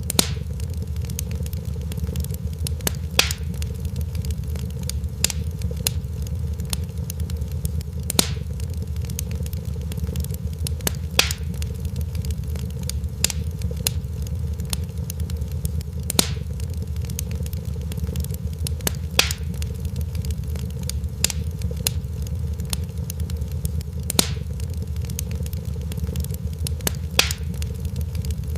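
Fireplace fire crackling: a steady low rumble under frequent small crackles, with a louder pop every few seconds.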